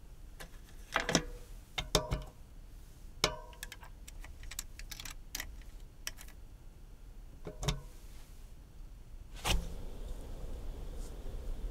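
Bicycle front wheel being refitted into a disc-brake fork: metallic clinks and knocks, some ringing briefly, as the wheel and its brake rotor seat in the dropouts, with a run of small ticks as the thru-axle is threaded in. Near the end a louder knock as the wheel is set spinning, then the steady whir of the spinning wheel and disc rotor.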